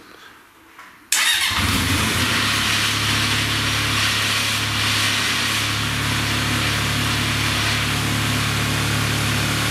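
Honda CB 750's air-cooled four-cylinder engine starting about a second in and then running steadily. It is being run after a new rotor, alternator and regulator were fitted, to check that the alternator charges.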